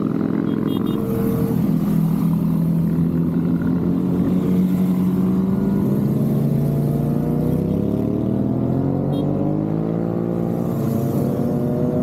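A stream of motorcycles riding past, several engines running at once. About eight seconds in, one engine rises in pitch as it accelerates.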